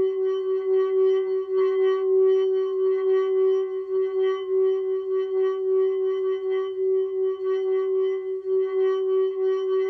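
Tibetan singing bowl rim-played with a wooden mallet, sustaining one steady singing tone with ringing overtones that wavers gently in loudness as the mallet circles the rim.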